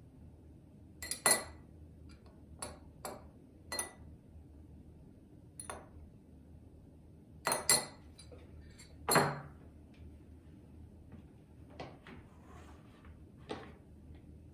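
Glass clinks and knocks: a glass muddler tapping against glass tumblers and the tumblers being moved and set down on a wooden table. There are about ten sharp, short clinks, some ringing briefly. The loudest come a little past a second in and near the middle, and one just past nine seconds has a duller knock under it.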